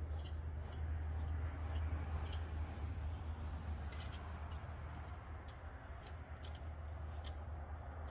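Light metallic clicks, about a dozen at uneven intervals, from hand-adjusting the threaded spring collar on a rear coilover shock, over a steady low hum.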